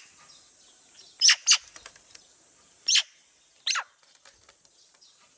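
Bird calls: four short, loud calls, each sliding down in pitch, the first two close together about a second in and two more a little later.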